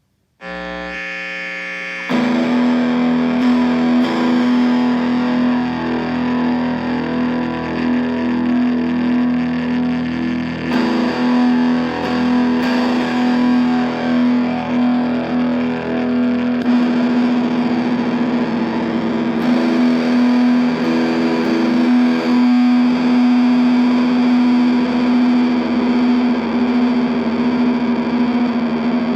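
Distorted electric guitar, a Fender Jazzmaster with Stonewall Fat Jazzmaster pickups, played through an ESI Transponder effects pedal into an Orange Micro Dark amp with the gain at 7 and a 1x8 cab. It starts softer and gets loud about two seconds in, with a steady held tone running under the playing.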